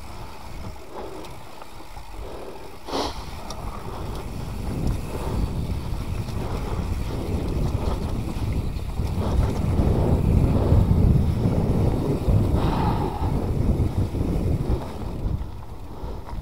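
Mountain bike rolling fast down dry dirt singletrack: wind buffeting an action camera's microphone over the low rumble and rattle of the tyres and bike on the trail. It grows louder through the middle, with a sharp knock about three seconds in.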